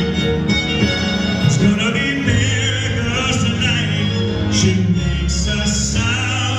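Live pop band playing with a string section, a male lead voice singing over sustained strings.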